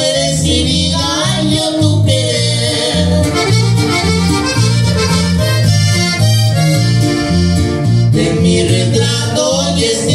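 Norteño music: a button accordion plays the lead melody over a bajo sexto and electric bass, which keep a steady, evenly repeating bass-and-chord beat.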